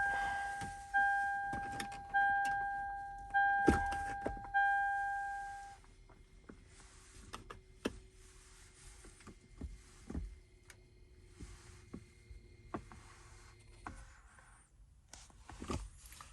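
A car's warning chime dings five times, about once a second, each ding fading away. After that come scattered light clicks and handling noises.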